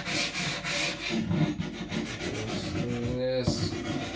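Niolox-steel nakiri blade stroked back and forth on a wet whetstone: a continuous gritty rubbing in repeated strokes as the shoulders behind the edge are ground down.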